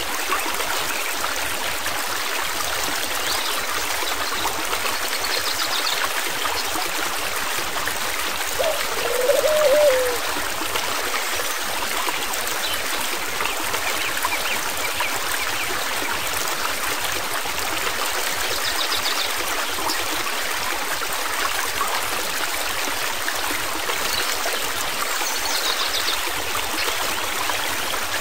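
Steady rushing of flowing stream water, with a few faint high chirps and a brief louder wavering sound about nine seconds in.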